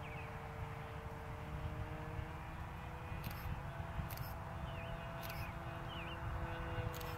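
Brand-new OS 55 AX two-stroke glow engine of an RC airplane in flight at a distance: a thin, steady drone whose pitch edges up slightly a little over two seconds in. Wind rumbles on the microphone, and a few short bird chirps sound over it.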